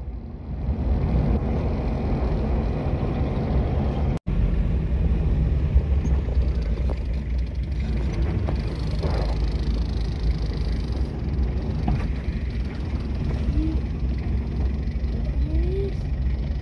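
Car driving, heard from inside the cabin: a steady low rumble of engine and tyres. The sound cuts out briefly about four seconds in.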